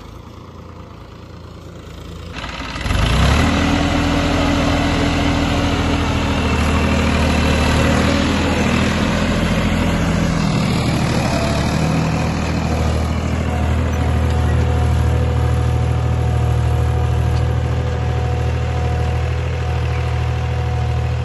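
Massey Ferguson 245 DI tractor's three-cylinder diesel engine running steadily under load while pulling a cultivator. It is quieter for the first two seconds or so, then becomes loud about two and a half seconds in and holds steady.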